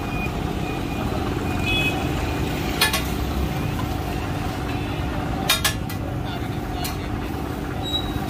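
Steady low street-traffic rumble with four sharp metal clinks, a steel spatula striking a flat griddle, two of them in quick succession about halfway through.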